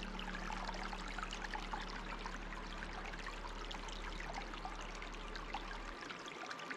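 Running water trickling and babbling steadily, like a small stream, with many small splashes and drips. A soft low drone sits underneath and stops near the end.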